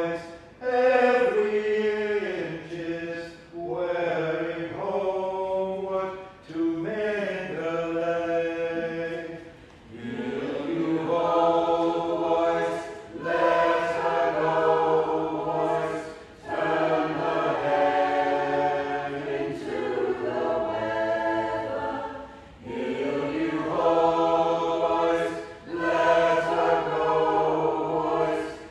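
Mixed community choir of men's and women's voices singing together, in sung phrases a few seconds long with brief breaths between them.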